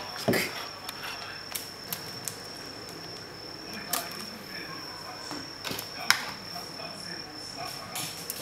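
A few sharp clicks and knocks as plastic dog bowls are handled and set down on a countertop, the loudest about a second in, then again around the middle. A thin, steady high-pitched whine runs underneath.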